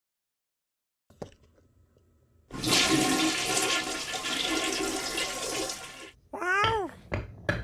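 Toilet-flush sound effect: a rushing, gurgling flush that starts about two and a half seconds in and lasts three to four seconds, after a single click. Near the end comes a short cartoon-like sound that slides in pitch.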